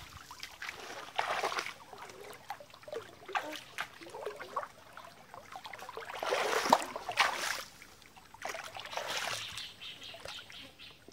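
Water splashing and trickling in a shallow stream, coming in irregular bursts a second or two long.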